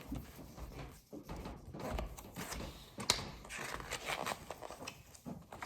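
A picture book being handled: quiet rustling and shuffling, with a light tap about three seconds in.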